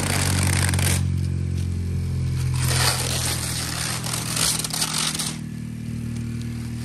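Civic Si's turbocharged four-cylinder idling steadily while plastic protective wrap is crinkled and pulled off the car in three noisy bursts.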